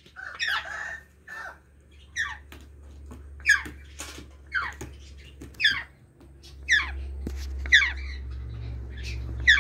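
Young African grey parrot squawking repeatedly: a series of short calls, each falling quickly in pitch, about one a second. A low steady hum comes in about two-thirds of the way through.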